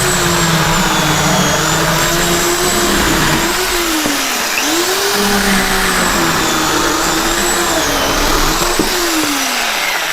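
Portland 14-inch 9-amp electric chainsaw running and cutting through rotted wood. Its motor pitch sags under load about four seconds in, recovers, then falls away near the end as the saw winds down.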